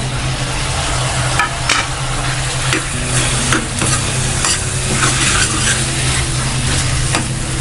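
Freshly added chopped tomatoes sizzling in hot oil in a steel kadhai, stirred with a steel ladle that scrapes and clinks against the pan several times.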